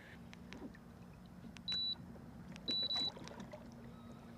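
Short, high electronic beeps, one about a second and a half in and a longer double beep about a second later, over a steady low hum and faint scattered clicks.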